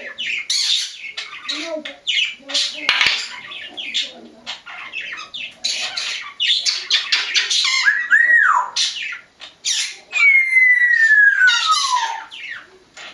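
Pet parrots, an African grey among them, squawking and chirping in rapid harsh calls. About eight seconds in comes a whistle that rises and falls, and near the end a long whistle that slides steadily down in pitch.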